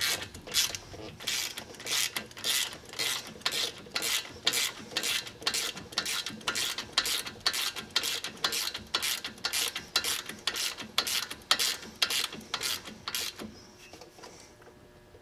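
Hand ratchet clicking in quick, steady strokes as it runs the front axle-shaft nut up onto the hub. The clicking stops near the end.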